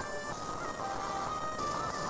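Background music: a light melody of held notes that change in pitch.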